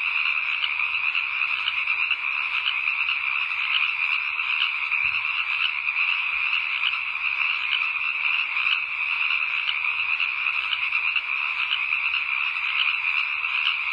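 A dense, steady chorus of many frogs calling at night, their rapid pulsed calls merging into one unbroken wall of sound.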